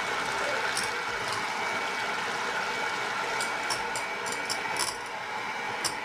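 Electric hand mixer running at high speed, its beaters whipping eggs to a foam in a stainless steel bowl: a steady motor whine with the whirr of the beaters, and a run of light clicks in the second half.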